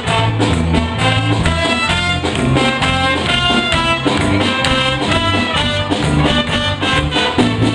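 Wind band with brass playing a lively, Latin-flavoured tune, the music continuing without a break.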